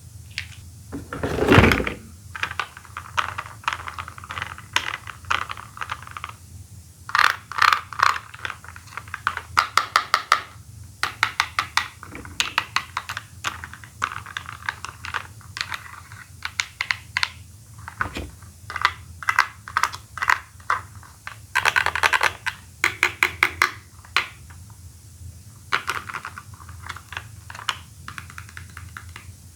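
Plastic toy Poké Balls being handled, clicking and snapping: a dense, irregular run of clicks and taps, with one louder thump about a second and a half in.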